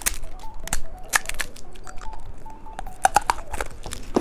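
Crinkly candy wrapper being handled and torn open: irregular sharp crackles and rustles, densest about three seconds in.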